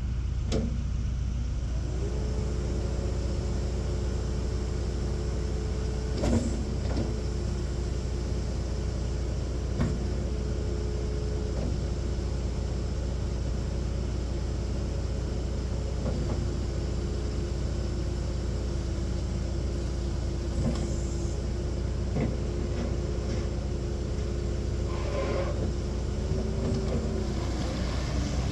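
New Holland C238 tracked skid steer loader's four-cylinder turbo diesel running steadily under work, with a steady whine that rises about two seconds in and dips near the end. Scattered sharp clunks and knocks from the machine sound over the engine.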